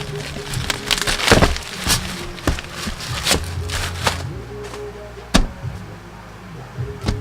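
Background music with steady low held notes, over repeated short crackles and rustles of a cardboard package being torn open.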